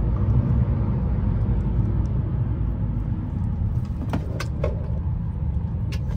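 Steady low road and engine rumble of a Mercedes car heard from inside its cabin while driving, easing a little as the car slows. A few light clicks come about four seconds in and again near the end.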